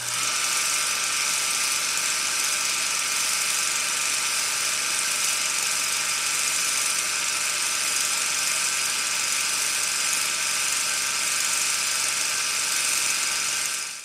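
Steady mechanical whirring with a hiss over it and a faint low hum, starting and stopping abruptly: the sound effect laid under a channel logo intro.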